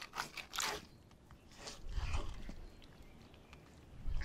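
Fillet knife gutting a black belly rose snapper: short wet crunching and scraping cuts through the fish's tough, leathery belly and stomach, with a low rumble about two seconds in.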